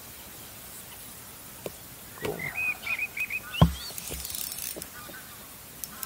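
A bird calls in a quick run of about six short notes, and a single sharp thump sounds about three and a half seconds in.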